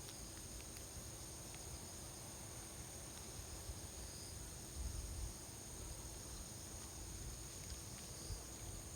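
Faint, steady high-pitched trilling of insects, with a low rumble of wind on the microphone that swells briefly about five seconds in.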